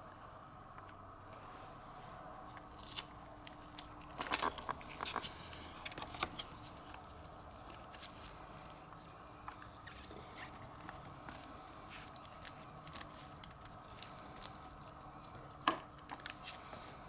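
Low steady room hum with scattered light clicks and small crackles from close-up handling work, bunched about four to six seconds in, with one sharper click near the end.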